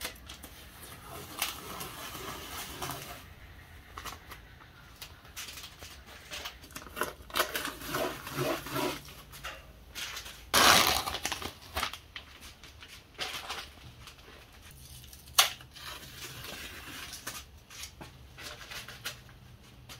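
Masking tape being peeled off a freshly spray-painted engine block, crackling and tearing in irregular pulls with scattered clicks. One louder tearing burst comes about halfway through.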